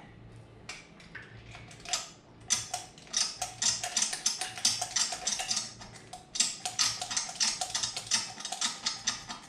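Rapid, irregular metallic clicking and light clinking of hand tools being worked at the motorcycle's engine, starting about two seconds in.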